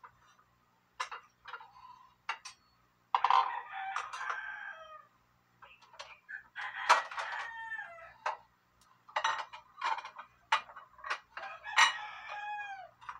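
A rooster crowing three times, each crow a long call that bends down in pitch at the end, with short sharp sounds between the crows.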